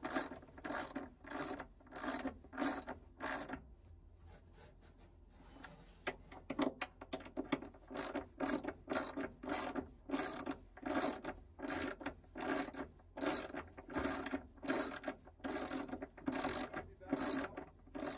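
Hand ratchet wrench clicking in short, even strokes, about two a second, as it runs stainless nuts down onto the gudgeon bolts against a metal backing bar. The strokes pause for a couple of seconds near the four-second mark and then start again, first with a quick run of clicks.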